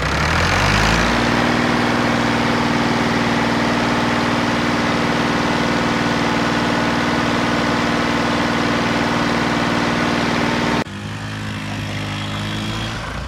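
Orange New Holland Ghazi tractor's diesel engine catching and revving up over the first second, then running steadily, its airlock cleared. About eleven seconds in the sound cuts off abruptly and a second tractor's engine runs briefly.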